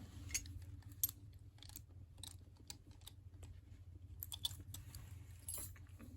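Faint, irregular small clicks and taps of a metal key and a bent-wire lever-lock pick being handled, over a steady low hum.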